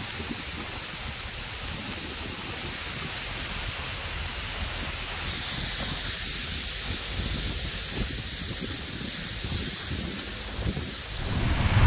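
Dry fallen leaves rustling and crackling under a 4x4 pushing through a thick layer of them: a steady crisp hiss that gets brighter about halfway through. Near the end a louder rushing sound comes in.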